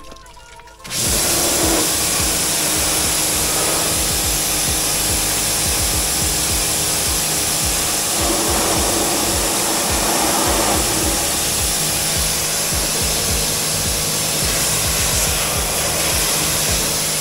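Pressure washer blasting a high-pressure water jet against the inside of a stripped car body shell to wash out caked mud. A steady, loud hiss of spray starts about a second in and holds.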